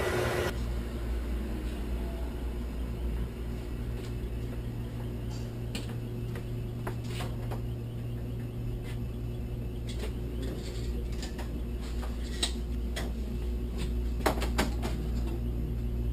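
Steady low hum, with a few brief faint clicks and knocks scattered through it.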